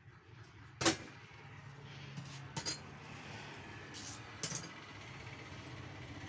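Metal clinking and knocking as parts of a cut-off saw are handled by hand: one sharp clink about a second in, then a few lighter clinks, over a faint low hum.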